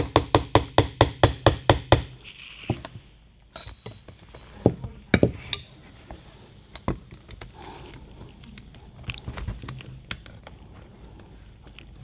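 A quick, even run of about a dozen light metal taps on a mobility scooter's front-wheel axle shaft, tapping it out a little so a spacer can go in, stopping about two seconds in. Then a few scattered single knocks and clicks as the wheel and fork assembly are handled.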